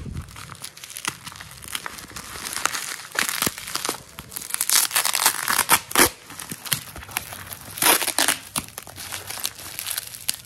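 Bubble wrap and packing tape crinkling and tearing as they are pulled off a glass jar with effort: a steady run of irregular crackles, with louder rips about halfway through and again near the end.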